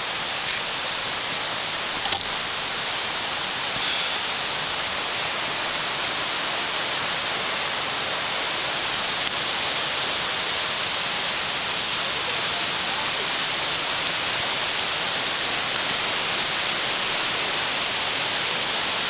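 Waterfall flowing full after days of rain, a steady, even rush of falling water.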